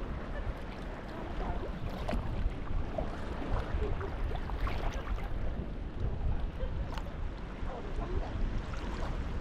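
Sea kayak being paddled: water splashing and dripping off the paddle blades and lapping at the hull in scattered small ticks, over a steady low wind rumble on the microphone.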